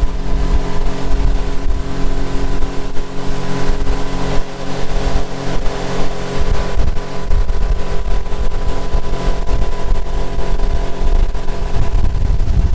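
Outboard motor of a pontoon boat running at a steady speed, with wind buffeting the microphone. The engine's tone fades near the end.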